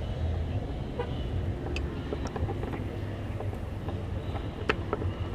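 Steady low rumble of a motor vehicle engine running, with a few faint clicks over it.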